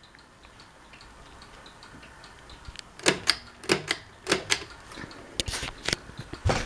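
Regency Oasis ceiling fan set to low: a faint steady background, then from about three seconds in a run of irregular sharp clicks and knocks, about eight of them.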